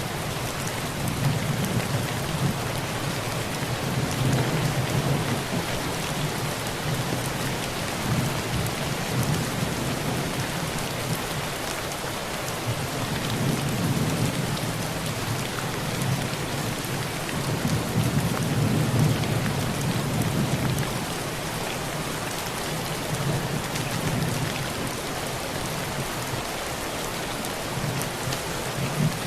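Heavy rain falling steadily on a tin roof, with low rolls of thunder that swell and fade several times.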